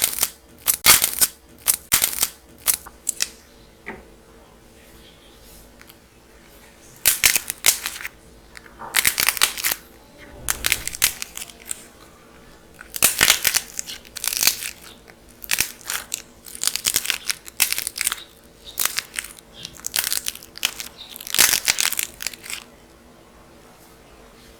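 Dried clay being cracked and crumbled, making crisp crackling in short clusters with brief pauses between.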